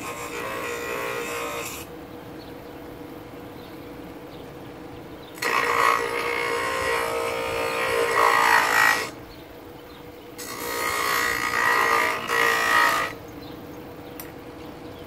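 Bench grinder running with a steady hum while a piece of oak is pressed against the wheel in three passes: one at the start, one from about five to nine seconds in, and one from about ten and a half to thirteen seconds in. Each pass is a loud grinding of wood on the wheel over the motor, and between passes the wheel spins free.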